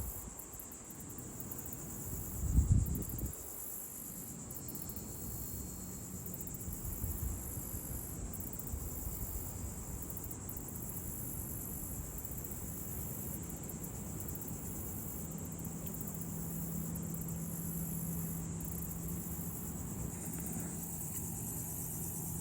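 Steady, high-pitched chorus of insects over a low rumble, with one dull thump about two and a half seconds in; a faint low hum joins about fifteen seconds in.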